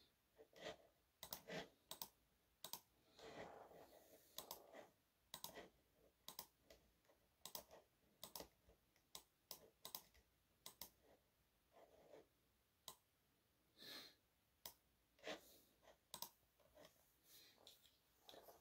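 Near silence with faint, irregular clicks, about one or two a second.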